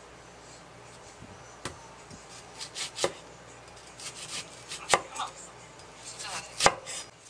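Chef's knife cutting through an onion onto a wooden cutting board: about four separate cuts, each a short crunch of onion ending in a knock on the board.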